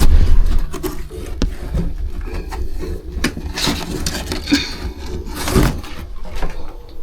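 A box being handled and pulled at: scraping and rustling with scattered knocks, over a heavy rumble of handling near the microphone at the start.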